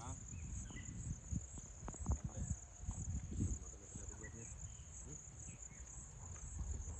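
Insects chirring steadily at a high pitch, over a low rumbling and a few faint knocks.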